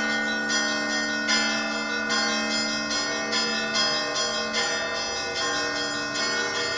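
Russian Orthodox church bells ringing (zvon): several bells struck in a quick, steady rhythm, about two to three strokes a second, over the long, steady ring of a lower bell.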